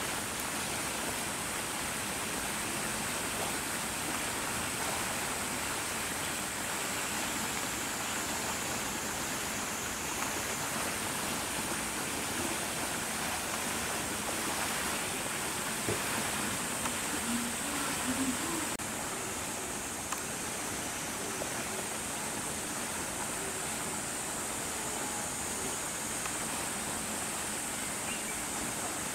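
Steady outdoor background hiss with a continuous high-pitched drone running over it, and no distinct events apart from a faint click partway through.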